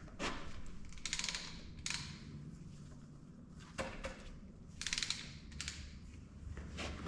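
Irregular metallic clinks and short rattles, about half a dozen, as metal parts and tools are handled while a flywheel housing is fitted to a Detroit Diesel 2-53 engine, over a faint low hum.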